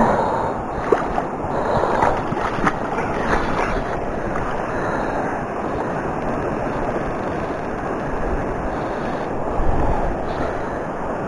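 Steady rushing noise of wind on the microphone and river water, with the angler's sleeve rubbing over the microphone and a few light knocks in the first three seconds.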